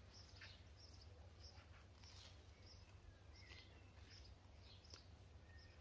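Near silence, with faint scattered bird chirps and a steady low background hum.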